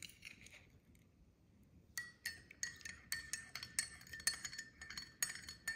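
Metal spoon stirring a drink in a ceramic mug, clinking against the mug's side about three to four times a second from about two seconds in.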